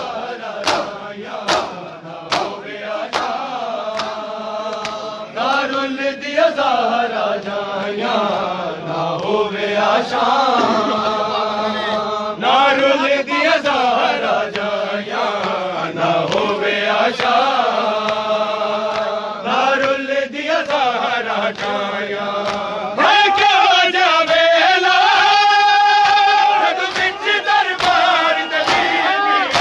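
Men chanting a nauha, a Shia lament, together in a long sung refrain, with chest-beating (matam) slaps keeping time about twice a second, most plainly at the start and again near the end.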